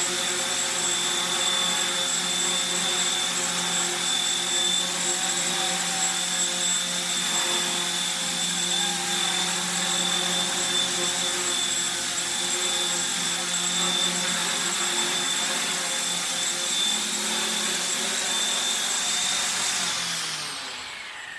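Micro electric RC helicopter, a 1/35 scale Black Hawk model running on XK K110 flight parts, hovering with a steady high motor whine and rotor whir. Near the end it lands and the rotor spins down, the whine falling in pitch and fading.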